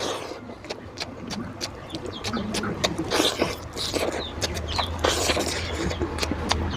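Close-up eating sounds of mutton fat and rice: wet chewing and lip smacks come as many irregular short clicks, with a few brief animal calls in the background.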